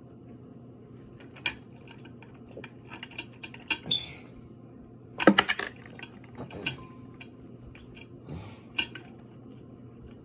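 Eating sounds at a seafood boil: scattered clicks, clinks and cracks of utensils, dishes and food being handled. The loudest is a quick cluster of sharp cracks about five seconds in.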